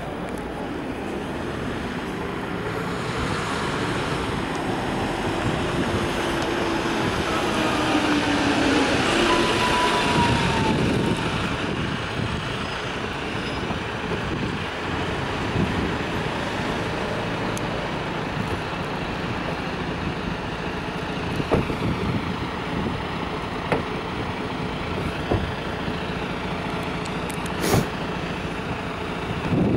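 A large vehicle passes close by, growing louder to a peak about ten seconds in, with a whine that slides down in pitch as it passes. After that, steady street noise with a few sharp knocks.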